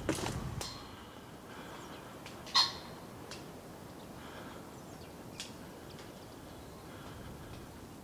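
One short bird call about two and a half seconds in, over a steady faint rush of wind in the woods, with a few faint ticks.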